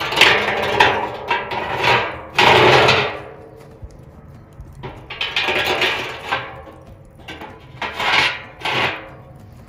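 Rebar rods slid through the holes in the top of a metal barrel smoker: several bouts of metal scraping and clanking, each about a second long.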